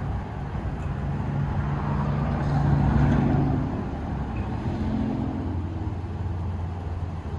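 Street traffic: a car engine running steadily, with a passing vehicle swelling and fading about three seconds in.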